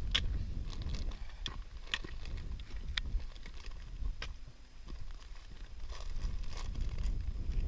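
Wind rumbling on the microphone, with scattered sharp clicks and crunches of a hiker stepping across bare rock and gravel, roughly one a second.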